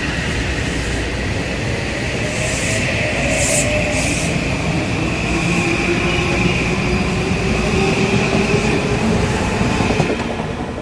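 Passenger train running close by on the rails, with a steady high wheel squeal and a faint whine slowly rising in pitch; the sound drops off suddenly near the end.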